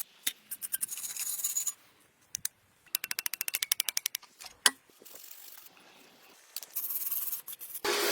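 Hand scraping or scrubbing strokes: scattered strokes at first, then a quick run of about nine a second for just over a second in the middle, a single sharper click a little later, and short pauses between.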